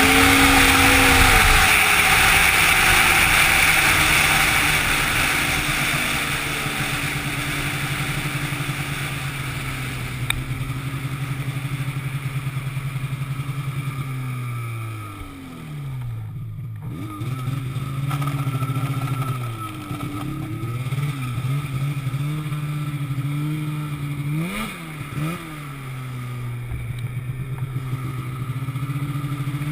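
An engine running at a steady pitch, sagging and then picking back up about halfway through and again near the end, with a hiss that fades over the first few seconds.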